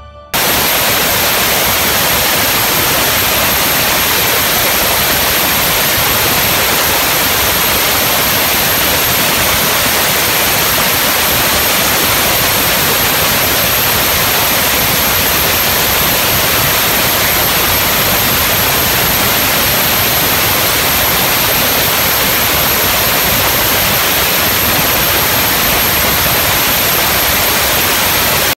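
Dry ice blaster's nozzle blasting dried chocolate off a filling line, a loud, steady rush of compressed air with a thin, very high whine on top. It starts abruptly just after the opening and keeps up without a break.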